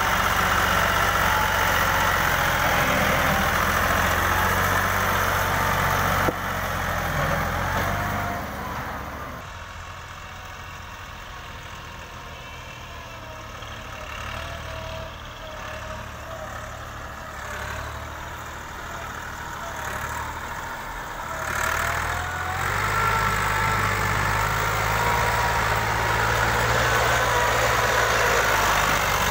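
Farm tractor diesel engine running hard while pulling a loaded trolley: loud and close at first, dropping away for about the middle half, then loud again from about two-thirds of the way in as a tractor comes near. Its pitch wavers up and down as the throttle changes.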